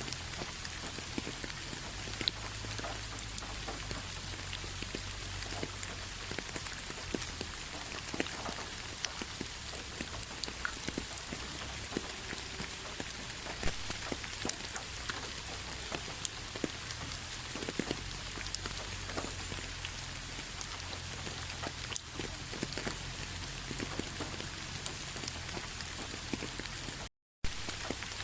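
Steady rain: a constant hiss with many separate drops clicking as they land. The sound cuts out completely for a split second near the end.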